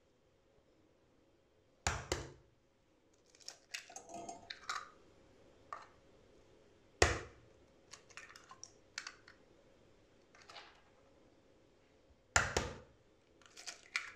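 Raw eggs being cracked one after another: three sharp taps about five seconds apart, each followed by a run of small clicks and crackles as the shell is broken open over a glass bowl.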